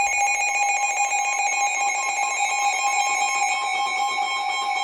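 Emergency alert attention tone from a weather-alert broadcast: a steady electronic tone sounding two pitches at once, held without a break.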